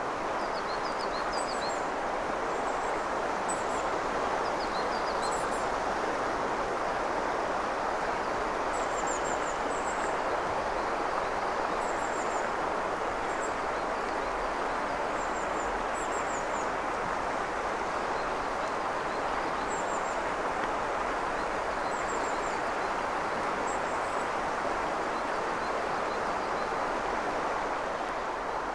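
Steady rush of the Azusa River's clear mountain water flowing over a stony bed. Small birds give short, high chirps every second or two above it, thinning out near the end.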